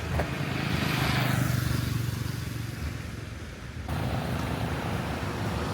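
A motor vehicle passes, its engine hum and road noise swelling and then fading over about three seconds. At about four seconds the background changes abruptly to a steadier outdoor rumble.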